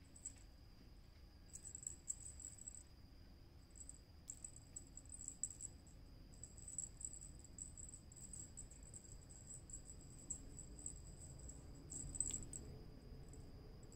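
Crickets chirping faintly: high-pitched trills in runs of a second or two that break off and start again.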